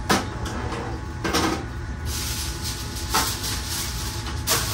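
Four short knocks and scrapes of cookware being handled at a portable pellet grill, about a second apart, over a steady low hum.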